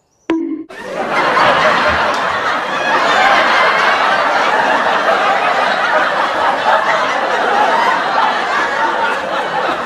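Many voices laughing together at once, like a studio laugh track, starting about half a second in after a short blip and running on steady and loud.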